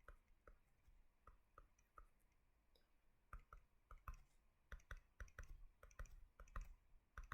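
Faint, irregular clicks of a stylus tapping on a drawing tablet, sparse at first and coming more often from about three seconds in.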